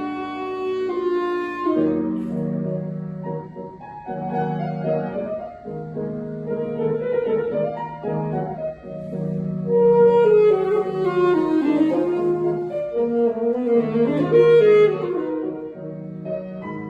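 A solo wind instrument plays a slow, lyrical melody with piano accompaniment; the melody rises and falls and holds long notes.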